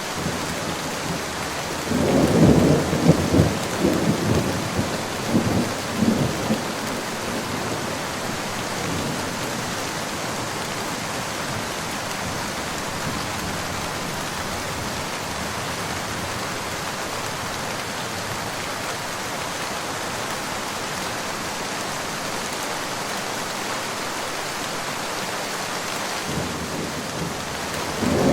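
Steady rain falling, with a thunderclap about two seconds in that rolls and crackles for several seconds before fading. Another roll of thunder begins near the end.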